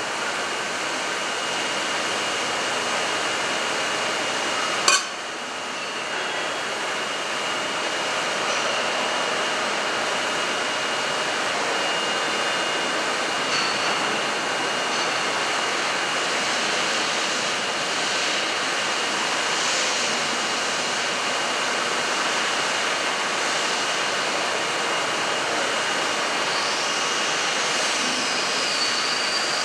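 1963 Droop & Rein D 175 V horizontal boring and milling machine running: a steady hiss with a faint high whine, a sharp click about five seconds in, and a short whine that rises and falls near the end.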